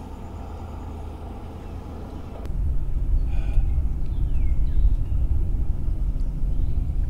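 Boat's outboard motor running steadily at trolling speed, then after a cut about two and a half seconds in, a louder low rumble of the boat under way.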